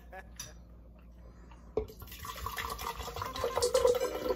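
Wine gurgling out of a glass bottle drunk straight from the neck, starting about two seconds in and getting louder.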